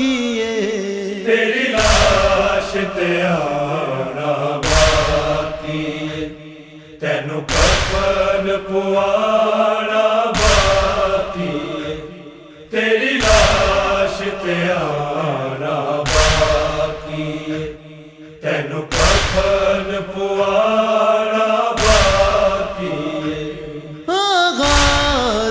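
Nauha lament chanted by male voices in long, drawn-out melodic lines, over a heavy thud that falls about every three seconds, in the rhythm of matam chest-beating.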